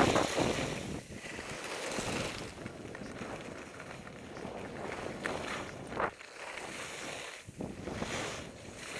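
Wind buffeting an action camera's microphone while skis hiss and scrape over packed snow, the noise rising and falling through the turns.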